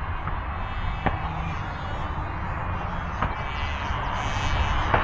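Freewing Lippisch P.15 64mm electric ducted-fan jet flying its landing approach, a steady fan noise over wind rumble on the microphone, growing louder near the end as the jet comes closer. A few light clicks.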